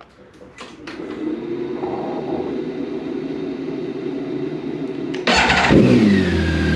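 BMW K1600 GT's inline-six engine starting. After a few clicks and a steady hum, it fires about five seconds in, the revs flaring and then dropping quickly to a steady idle.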